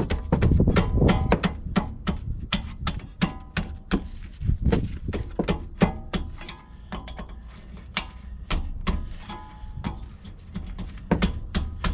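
Metal tool clicks and knocks from a Torx bit and wrench working on the Torx bolts of a rear brake caliper. The clicks come irregularly and keep going throughout.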